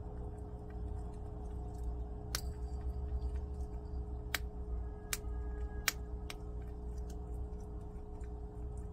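Prairie dog eating hard little wild soybeans from a dish: about five sharp cracks and clicks of beans being bitten and knocked about, spread through the middle of the stretch, with fainter ticks between. A steady low hum runs underneath.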